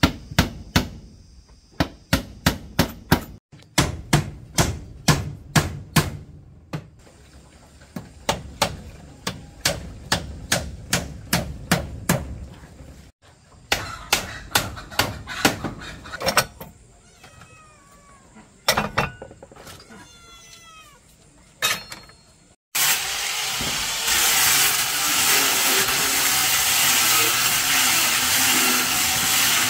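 Sharp strikes on wood, about three a second, in several short runs. Then a string of short, high, falling animal calls, and from near the end a steady harsh noise.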